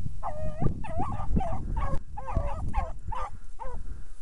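A pack of hounds baying as they run a rabbit's scent line: about ten short, pitched calls, one held a little longer in the first second.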